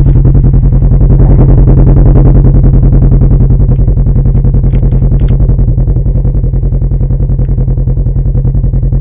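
Polaris 1000's engine running hard and steady under load with a fast, even throb, easing off slightly a little past the middle, as it tows a loaded johnboat through deep snow.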